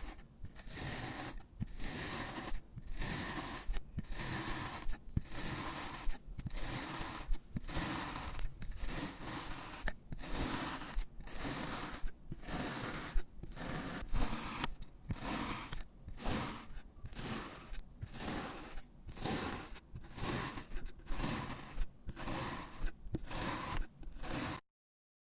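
A blade cutting through kinetic sand with repeated gritty scraping strokes, each under a second long with short pauses between. The sound stops abruptly near the end.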